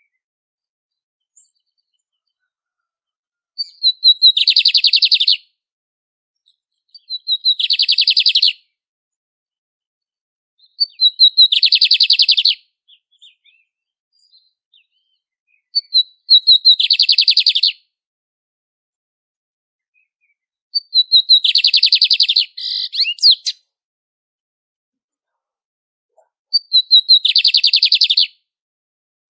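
Lined seedeater (bigodinho) singing six songs a few seconds apart. Each song is a few quick high notes running into a fast rattling trill.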